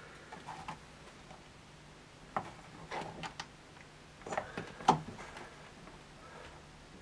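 Small knife prying at the woofer's rim in an LG SH34SL-W subwoofer cabinet: scattered clicks and knocks, with the sharpest about five seconds in.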